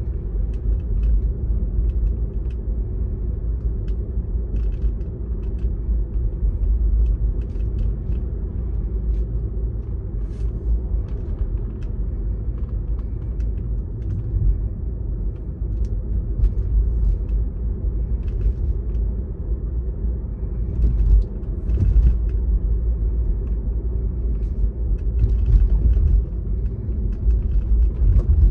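Steady low rumble of a car driving, engine and road noise heard from inside the cabin, with a few faint clicks.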